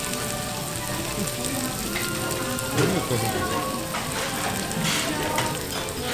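Food sizzling: a steady hiss, with faint voices and background music behind it.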